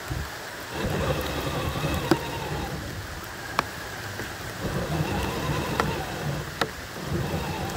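Electric motor and gear whine of an RC crawler, rising and falling in pitch in two throttle bursts, starting about a second in and again near the middle. Under it is the wet crackle of tyres working through mud and puddles, with a few sharp clicks.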